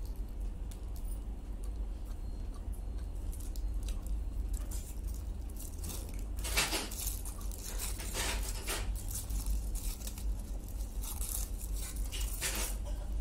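Aluminium foil wrapper crinkling and crackling in short bunches as it is peeled back and handled around a wrapped roll, over a steady low hum.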